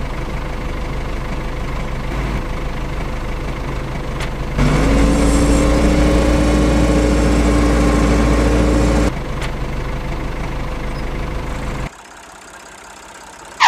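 Tractor engine running steadily, like an idle. About four and a half seconds in it abruptly gets louder, with a steady whine on top. It drops back about four seconds later and goes quieter again near the end.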